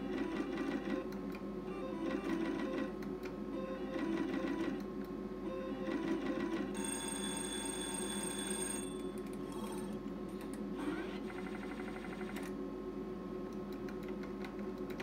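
Sizzling Hot slot machine sound effects: short electronic spin sounds repeating every couple of seconds as the reels turn, then a ringing win tone from about seven to nine seconds as three scatter stars pay out, followed by a fast run of electronic ticks. A steady low hum runs underneath.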